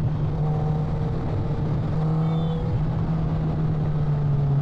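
Motor vehicle engine running at a steady pitch, easing slightly lower near the end, over road and wind noise.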